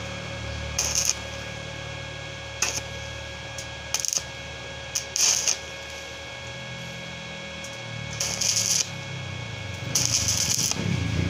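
Stick (arc) welding at about 80 amps on galvanized 1x1 steel tubing: about seven brief crackling bursts of the arc, the longest near the end, over a steady hum. The arc is struck in short stitches to bridge a wide gap without burning through the thin tube.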